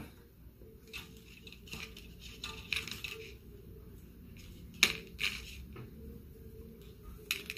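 Small fishing tackle being handled: a few scattered light clicks and clinks of metal snaps, swivels and a lead sinker as the sinker is put on the line, the sharpest click about five seconds in.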